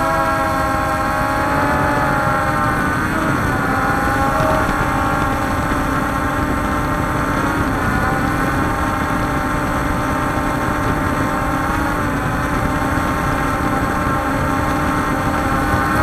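Walkera Scout X4 quadcopter's brushless motors and propellers whining steadily in flight, the pitch wavering briefly about three times as the motors change speed, over a low rushing of air.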